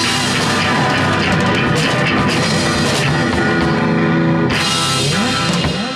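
Live rock band playing loud: electric guitar and drum kit with singing, the song stopping near the end as the sound drops away.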